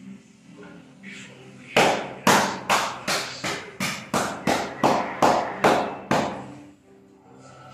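Percussive massage: the therapist's hands striking the client's back in a run of about a dozen sharp slaps, a little under three a second.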